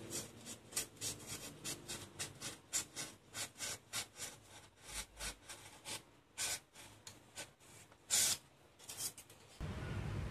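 Quick, repeated hand-worked rubbing strokes on a styrofoam piece, about three a second, like sanding or rasping it into shape. Near the end the strokes stop and a steady low noise takes over.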